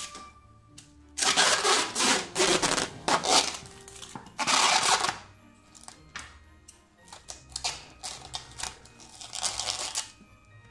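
Plastic cling wrap pulled off its roll and crinkled as it is stretched over a glass bowl: a run of loud crackling from about a second in to about five seconds, then lighter crinkles and sharp clicks.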